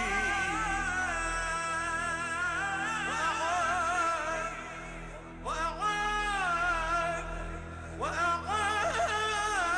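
Male voice singing an Arabic devotional song in long, ornamented melismatic lines with wide vibrato, over a sustained low accompaniment. New phrases begin with upward swoops about halfway through and again near the end.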